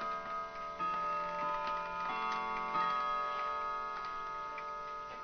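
Clock chime ringing: several struck notes sound in turn, about a second apart, and ring on and fade slowly, over the faint ticking of clocks.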